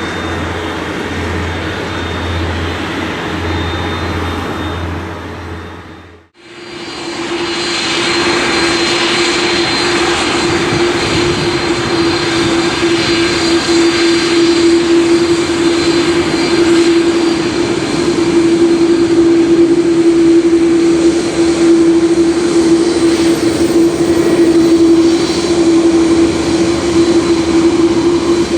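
Airbus A330-200 twin jet engines running at high power for take-off: a steady loud jet noise with one strong droning tone through it. About six seconds in the sound drops out for a moment and comes back louder.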